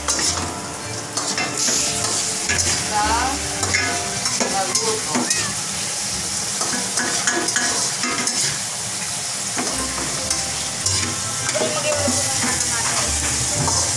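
Food sizzling and frying in two woks on a gas stove while a wooden spatula and a metal spatula stir it, scraping and knocking against the pans again and again.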